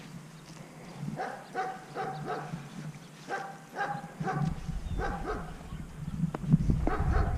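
A dog barking over and over in quick runs of three or four barks, with wind rumbling on the microphone from about halfway through.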